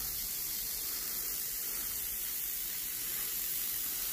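Gravity-feed airbrush spraying chipping fluid: a steady hiss of compressed air through the nozzle.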